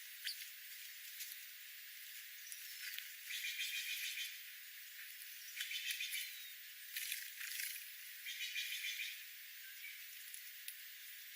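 Small birds giving short, dry rattling chatters, four bursts of about half a second to a second each, with a thin falling whistle before them, over a steady high hiss.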